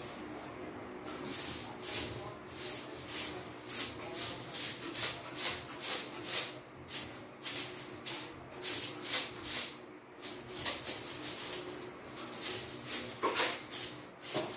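Broom swishing in quick, regular strokes, about two a second, with a short pause about ten seconds in.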